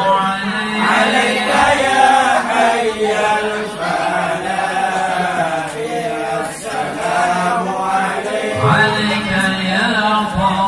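A Madurese hadrah group of men chanting sholawat together in unison, without drum accompaniment.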